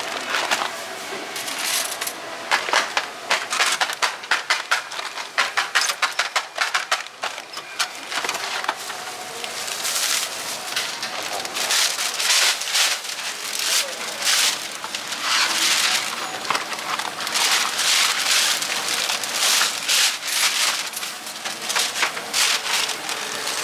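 Plastic food packaging being handled: a takeaway tray and its sealing film crinkling and crackling rapidly, then a plastic carrier bag rustling in longer bursts through the second half as it is opened and filled.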